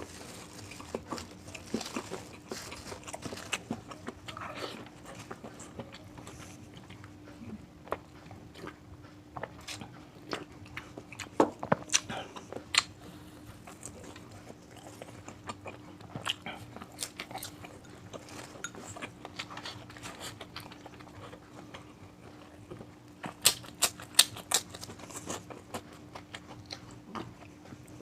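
Close-up chewing and crunching of crispy fried food, a stream of small sharp crunches with louder clusters about a third of the way in and again near the end.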